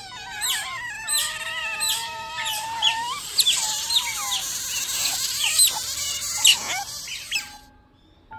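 A group of Asian small-clawed otters calling: a dense, overlapping chorus of wavering squeals and sharp downward chirps that cuts off suddenly near the end.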